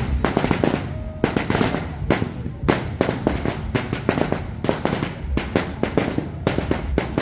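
Firecrackers going off in a rapid, irregular string of sharp bangs, several a second.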